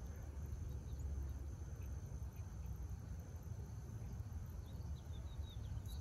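Quiet outdoor ambience: a faint steady high insect trill over a low rumble, with a few faint short chirps about five seconds in.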